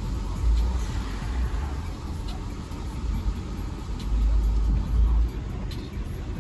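Car driving, a steady low rumble of engine and road noise with irregular heavier surges.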